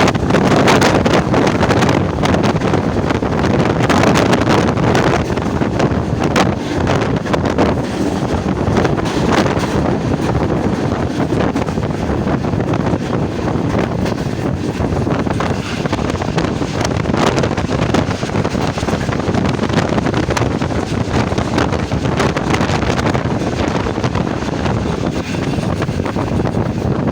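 Passenger train running, a steady loud rumble of wheels on rail with irregular clicks and clatter throughout, and wind buffeting the microphone.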